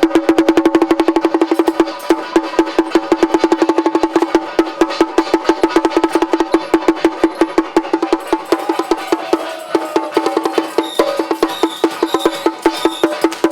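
Procession percussion music: a rapid, even stream of strikes on a pitched percussion instrument, each ringing at the same note, with some sustained tones above and a short falling tone about nine seconds in.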